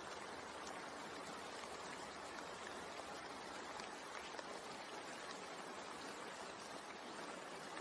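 Steady rain, an even hiss with a few faint drop ticks scattered through it.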